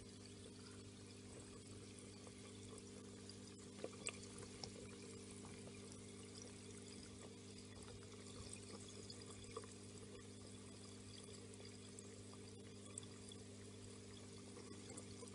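Faint fizzing of lead-acid battery electrolyte gassing in the open cells while on charge, with a few small pops, over a steady low hum. The gassing is the sign of cells taking charge.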